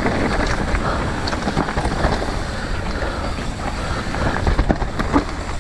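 Wind buffeting the microphone of a camera on a mountain bike riding a trail, a steady rumbling rush with scattered clicks and rattles from the bike.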